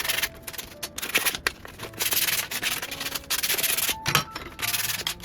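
Sandpaper rubbed by hand over the metal side panel of an Olympia Traveller typewriter in repeated scratchy strokes with short pauses between them, scuffing the surface so the new paint adheres.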